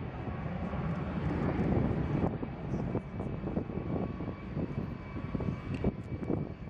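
Antonov An-225 Mriya's six turbofan engines running as the aircraft taxis: a rough, fluctuating rumble with a faint steady whine above it.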